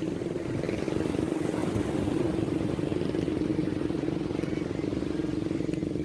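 A small engine running steadily at an even pitch, over the faint wash of waves breaking on the beach.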